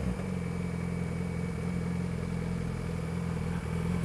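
2012 Yamaha R6's inline-four engine running at steady, low revs on its stock exhaust, an even drone with no revving.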